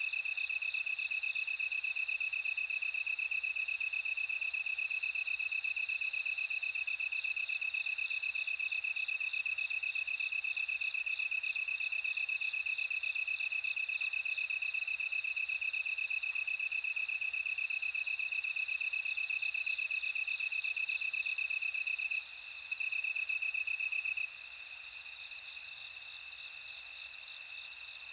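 Bell crickets chirping in a chorus of crickets: a steady pulsing trill with higher ringing trills that swell and fade every few seconds. The chorus drops in level near the end.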